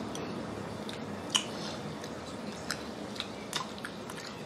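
A person chewing a mouthful of food, with a few short, soft clicks and smacks.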